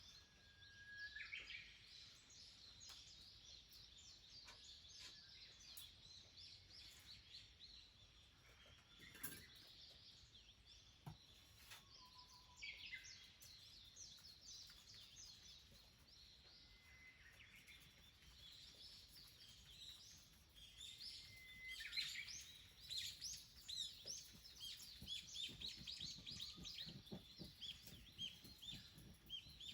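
Faint wild birdsong: a few clear whistled notes and scattered chirps, then from about two-thirds of the way in a dense, busy chatter of quick high chirps.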